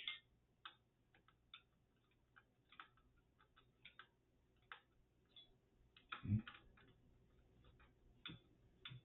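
Faint, irregular light clicks and ticks of small computer hardware being handled as a cooling fan is fitted into a PC case, with a dull knock about six seconds in.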